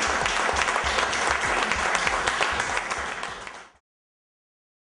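A roomful of people applauding, many hands clapping together, with a music beat thumping underneath; it cuts off abruptly a little before four seconds in.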